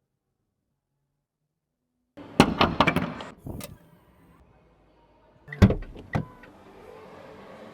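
A burst of clattering knocks and thuds, then two sharp thunks about half a second apart, followed by a faint steady hum.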